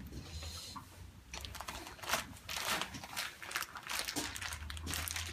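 Thin plastic bag crinkling and rustling as it is handled, in irregular crackles from about a second in.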